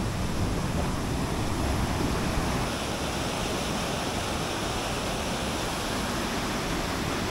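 River rapids: whitewater pouring over rocks, giving a steady, even rush of water.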